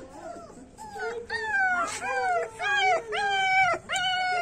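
German Shepherd puppy howling: a run of high cries starting about a second in, each falling in pitch.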